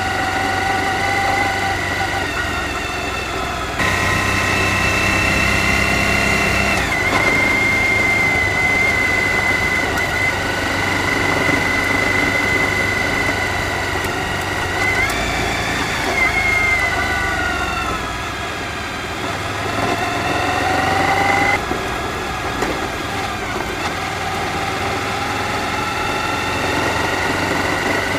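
Suzuki V-Strom DL1000's V-twin engine running under way, its pitch rising twice as the bike accelerates.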